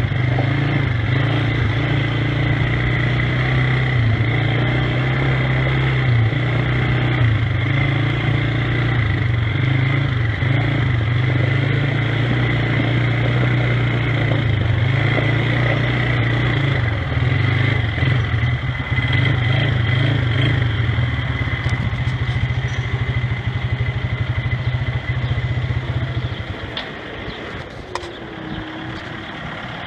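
Gehl 5240 skid-steer loader's engine running steadily under throttle, with a steady high whine over the engine note. The engine sound drops away about 26 seconds in.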